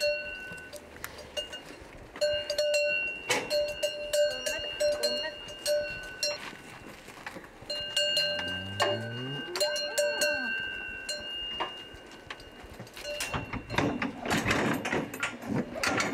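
Bells on livestock clanking and ringing on and off as the animals move, with a short low animal call about nine seconds in and a louder clatter near the end.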